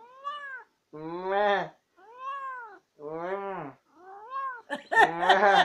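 A domestic cat meowing over and over in a chatty run, about one call a second. Higher-pitched arched meows alternate with lower, fuller ones, and a louder, rougher call comes near the end.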